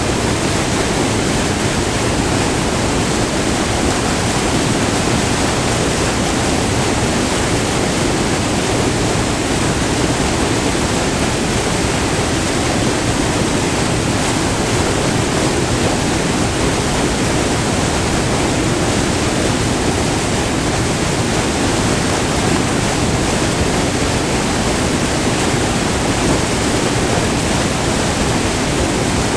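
White water pouring over a short, multi-tiered river waterfall: a loud, steady, unbroken rush.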